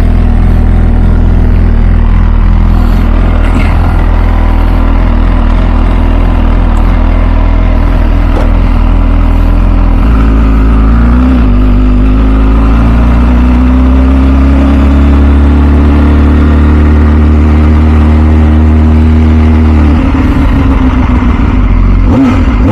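2006 MV Agusta F4 CC's 1078 cc inline-four engine running with its exhaust note steady at first; from about ten seconds in the pitch climbs slowly for several seconds as the bike accelerates, then drops off and shifts again near the end.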